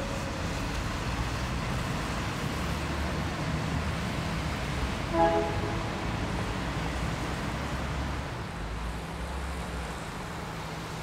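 Steady low rumble of city street traffic, with one short vehicle horn toot about five seconds in.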